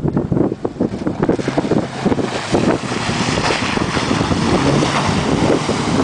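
Four-wheel-drive pickup's engine working under load as the truck crawls over rock, mixed with heavy wind buffeting on the microphone. The sound is choppy at first and turns into a steady rush from about two seconds in.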